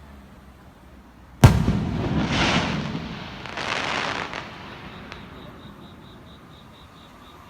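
A firework shell bursts with one sharp bang about a second and a half in. Two waves of crackling follow and fade out.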